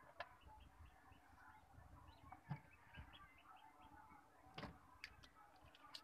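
Faint, rapid high peeping from a duckling, a few quick notes a second in short runs, with several sharp knocks from eggs and the plastic paint-can incubator being handled.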